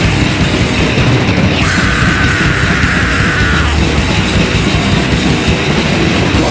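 Live extreme metal band playing loud and dense, with distorted guitars, bass and drums. About two seconds in, a high note is held for roughly two seconds, falling slightly in pitch.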